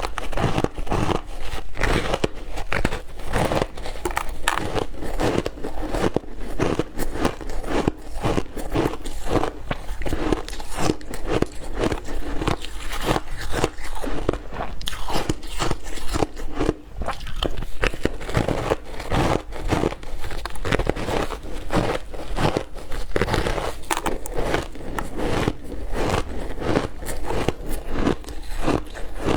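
Ice cubes being bitten and crunched between teeth close to the microphone: sharp cracking crunches, several a second, with chewing.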